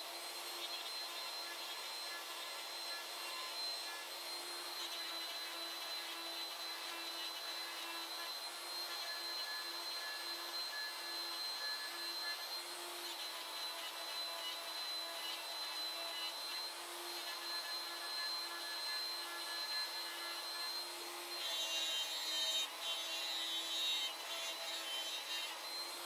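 CNC router spindle running steadily while its end mill cuts parts out of a wood sheet, a constant whine over the cutting noise. About 21 seconds in, the cutting gets louder and harsher, with more high ringing.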